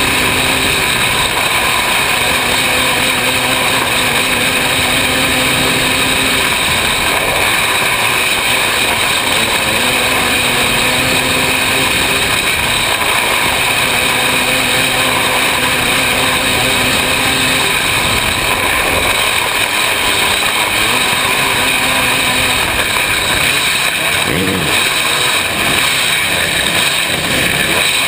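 Open-class 500cc racing engine held at high revs during a dirt-track race, heard from the driver's seat. The engine note eases off and climbs again through the turns, with one plain drop and rise in pitch about three-quarters of the way through.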